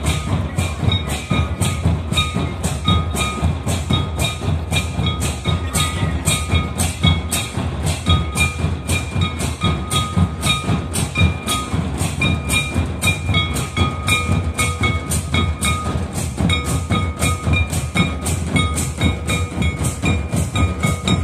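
Folk dance drum ensemble of large shoulder-slung barrel drums playing a steady fast beat, with a sharp click about three times a second and short high ringing notes over the deep drumming.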